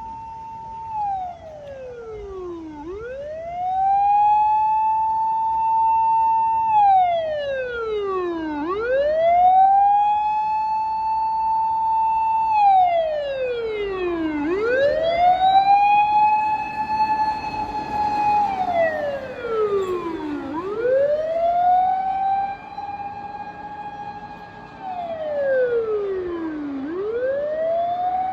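Fire department emergency vehicle's mechanical motor siren wailing in slow cycles. Five times it falls away from its high pitch over about two seconds, winds back up, and holds high for a couple of seconds, about every six seconds.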